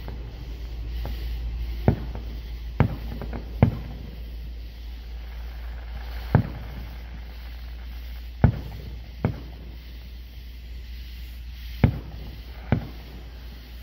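Aerial firework shells bursting: about eight sharp bangs at irregular intervals, several coming in quick pairs, over a steady low rumble.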